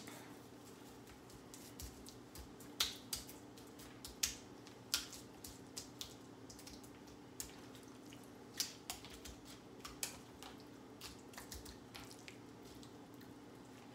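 Fresh rosemary sprigs broken up by hand and rubbed onto raw salmon fillets on a wooden cutting board: scattered small snaps, crackles and soft wet handling sounds at irregular intervals, over a steady low hum.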